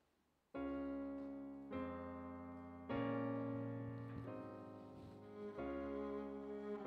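Electric keyboard playing a slow introduction of sustained chords. It begins about half a second in, with a new chord struck about every second and a half, five in all, each fading slowly.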